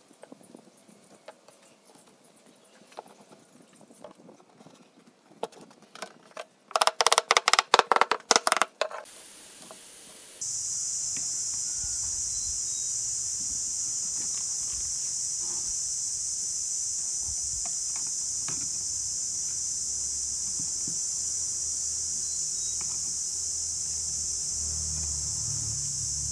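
Wooden end-grain blocks being set into a frame: faint clicks of wood on wood, then about seven seconds in a quick run of loud, sharp knocks lasting about two seconds. From about ten seconds on, a steady high hiss with a low rumble under it.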